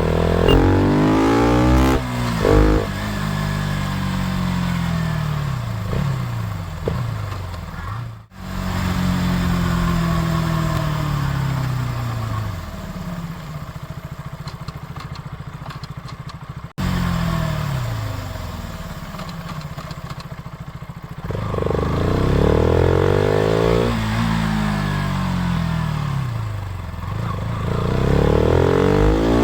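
KTM RC 200's single-cylinder engine revving through its exhaust, the pitch climbing and falling again and again. It breaks off abruptly twice.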